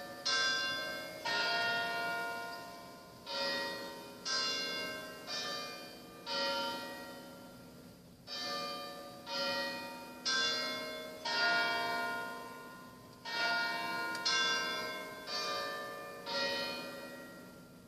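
Church bells chiming a tune, about one note a second, in four-note phrases with a short pause between each phrase; each note rings on and dies away.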